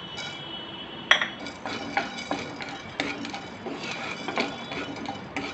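Clinking and scraping in a hot pan as black peppercorns and cloves are stirred while dry-roasting. The clinks come at irregular intervals, the first and loudest about a second in.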